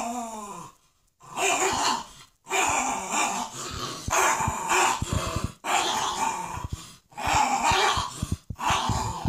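Two dogs, a Staffordshire bull terrier and a French bulldog, play-growling while they tug over a toy. The growls come in rough bouts of about a second, with short breaks between them.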